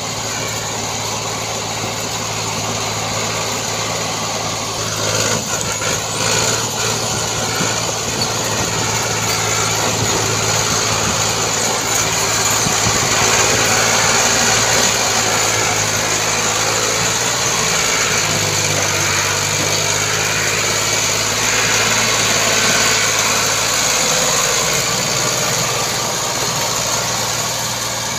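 Ford 4600 tractor's three-cylinder diesel engine running steadily under load, pulling a trolley heavily loaded with sugarcane.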